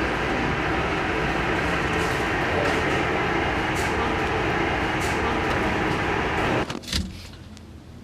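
Steady road noise like that heard inside a moving vehicle, which cuts off abruptly near the end, followed by a single short knock.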